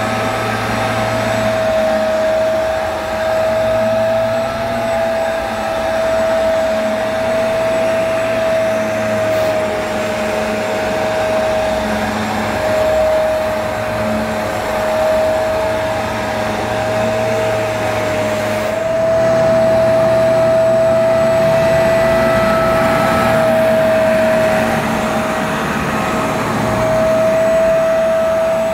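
Bissell PowerClean compact carpet washer running while it is worked over the carpet. Its motor gives a steady high whine over a rushing suction noise, wavering slightly in pitch and getting a little louder about two-thirds of the way in.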